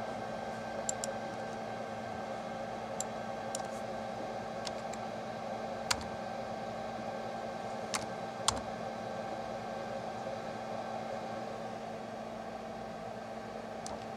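Steady machine hum, like a cooling fan, with about ten short sharp computer-mouse clicks scattered through it, the loudest two near the middle.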